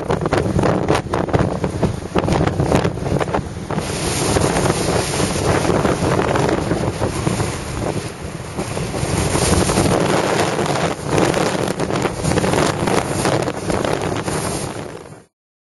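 Strong wind buffeting the microphone over the noise of storm-driven sea waves breaking, gusting up and down; it cuts off suddenly near the end.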